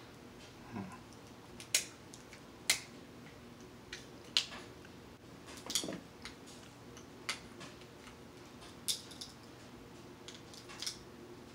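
Sharp cracks and clicks of king crab legs and mussel shells being broken open and picked apart by hand. The snaps come one at a time at irregular gaps of a second or more.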